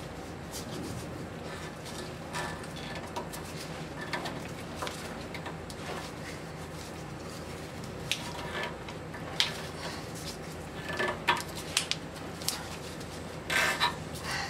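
Scattered light clinks, knocks and rubbing as a rubber exhaust hanger is worked onto its metal bracket at the front of the catalytic converter, with a cluster of louder knocks near the end.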